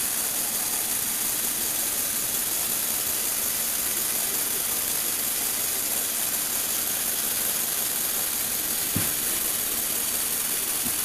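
Lego Technic motor driving the gear train of a rotating turntable, a steady, even whir with a faint hum, with a single soft knock about nine seconds in.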